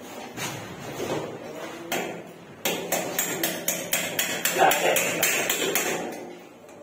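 Hammer striking at the concrete wall while metal furring is fixed up near the ceiling: a steady run of quick, sharp blows, about four a second, starting about two and a half seconds in.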